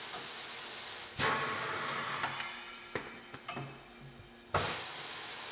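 Compressed air hissing from a tyre changer's pneumatic bead breaker as it unseats a tyre bead. The hiss cuts off about a second in, comes back briefly, and gives way to a few faint knocks. It then starts again suddenly near the end.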